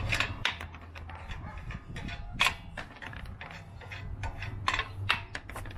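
Irregular light clicks and taps of hand tools working the plastic fender-liner fasteners in a car's front wheel well, with two sharper clicks about two and a half and five seconds in.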